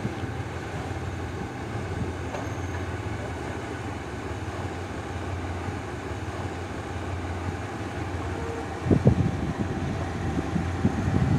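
Passenger train running along the track, a steady low rumble of the coach with a few sharp knocks about nine seconds in.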